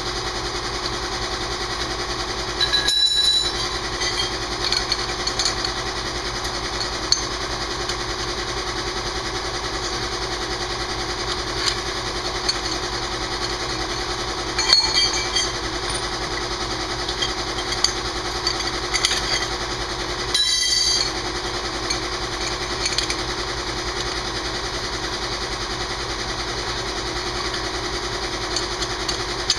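A steady machine drone with three short, louder bursts about 3, 15 and 20 seconds in.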